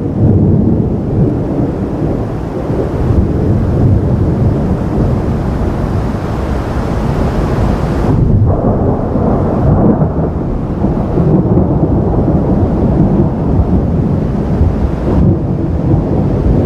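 A long, continuous low roll of thunder from a nearby thunderstorm.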